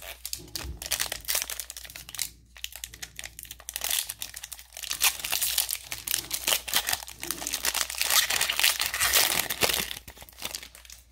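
Foil trading-card pack wrapper crinkling as it is handled and torn open by hand: a long, dense run of crackles, loudest near the end.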